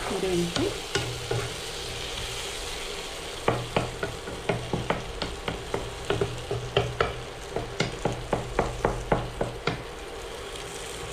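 Prawn masala sizzling in a non-stick frying pan as a spatula stirs it, with a quick run of spatula taps and scrapes against the pan from about three and a half seconds in.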